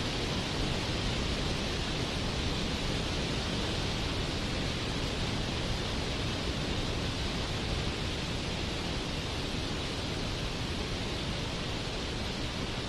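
Waterfall rushing: a steady, even roar of falling water with no change or break.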